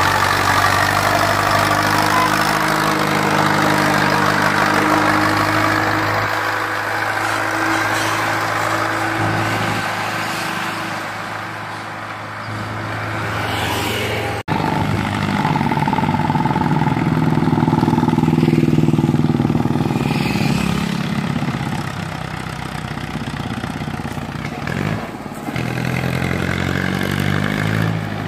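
Diesel farm tractors labouring under heavy sugarcane trolley loads, their engines running steadily with a slowly changing pitch. The first passes by, and after an abrupt change about halfway through a second one approaches.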